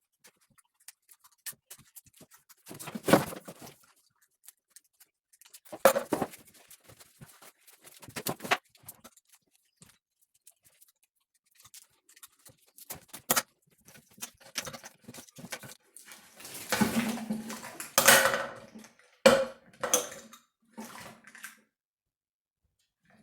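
Wires and plastic connectors of a car engine wiring harness being handled: irregular rustling and scraping with scattered sharp clicks and knocks. The longest rustle comes about two thirds of the way through.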